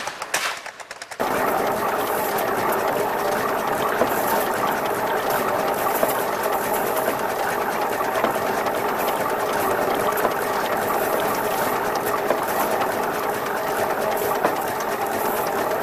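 Vintage engine running close to the microphone: a fast, steady mechanical clatter that starts about a second in.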